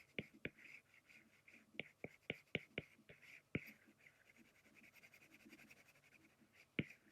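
Faint taps and light scratching of a stylus drawing on a tablet: a run of sharp little taps through the first four seconds, soft scratching after, and one more tap near the end.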